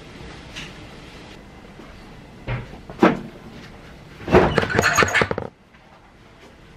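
Laundry being hung out to dry. There are a couple of sharp knocks, then about a second of quick, crackling flaps as a damp garment is shaken out.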